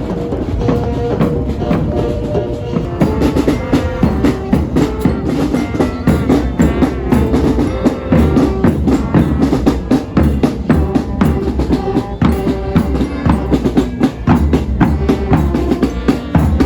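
Music with a driving drum beat: dense, steady drum strokes over held pitched notes.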